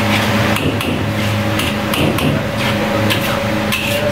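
Metal ladle and spatula scraping and knocking against a large wok while fried rice is stir-fried, in short clatters roughly once a second, over a steady kitchen hum.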